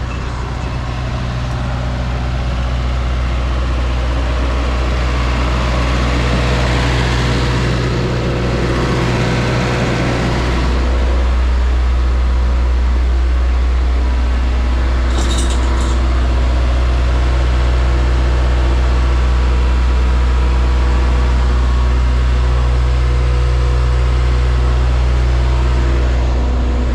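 Engine running steadily with a low, even hum that shifts slightly in pitch about ten seconds in. A brief high-pitched sound comes about fifteen seconds in.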